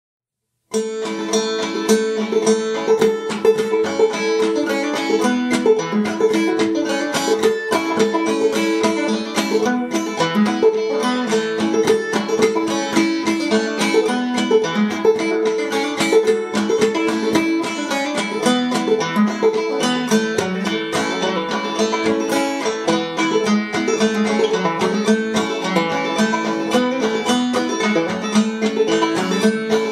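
Five-string banjo played clawhammer style: a lively old-time tune in the key of A, the banjo in standard A tuning (aEAC#E), with a steady stream of picked notes and brushed strums. The playing starts just under a second in.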